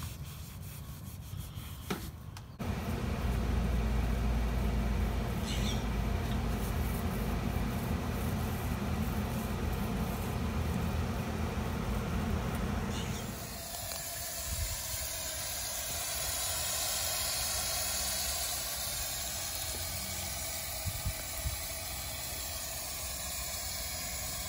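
A steady low rumble for the first half. About halfway through it gives way to a steady hiss of water spraying from a garden-hose spray nozzle onto the stone balcony floor, a flood test for leaks.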